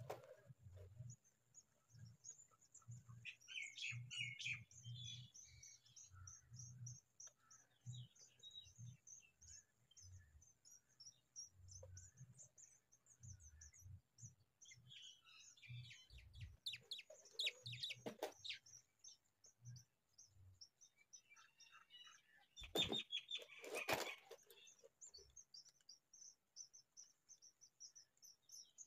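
Faint, rapid high-pitched cheeping of house sparrow nestlings begging in the nest, with a few louder chirps early on. Bursts of rustling and scuffing as the adult sparrows move against the nest material, the loudest about four-fifths of the way in.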